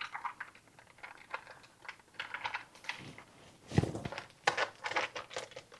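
Foil-lined paper wrapper of a block of cream cheese being peeled off and crinkled, a run of light clicks and rustles, with one louder thump a little under four seconds in.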